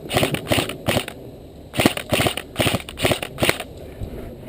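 Running footsteps crunching through dry leaves and brush, about three strides a second, in two runs with a pause of about a second between them.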